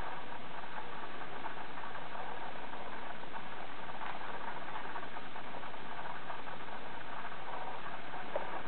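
Steady machine-like background noise at an even level, with a few faint clicks from a baby's plastic ring rattle being handled.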